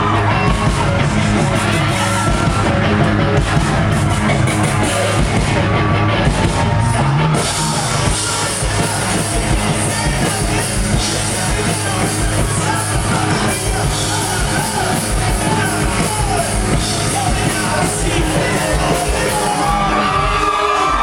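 Live rock band playing loudly, with singing and yelling over the band, heard from within the audience; the sound changes about seven seconds in.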